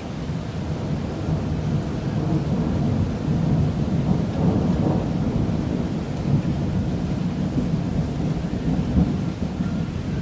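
Thunder rolling in a long, continuous low rumble that swells through the middle, over the hiss of rain during a strong thunderstorm.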